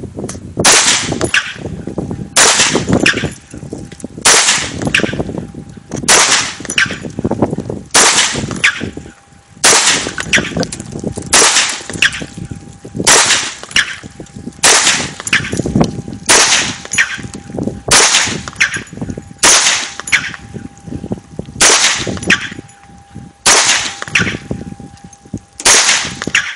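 AR-15 semi-automatic rifle fired in steady single shots, about fifteen of them, roughly one every two seconds, each crack followed by a short ringing tail.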